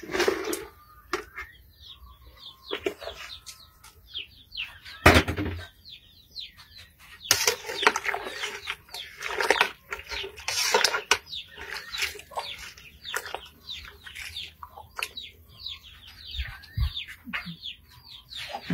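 Cooking sounds at a pot of boiling beef broth over a wood fire: chopped vegetables tipped into the water and a plastic bowl and ladle knocking against the aluminium pot. Scattered knocks and clatters, with one loud thump about five seconds in and a busier stretch of clatter a couple of seconds later.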